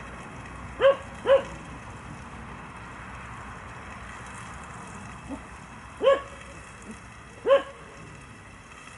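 A dog barking off to the side: four short, sharp barks, two close together about a second in and two more near the end. Under them runs the steady hiss of a gas canister camping stove.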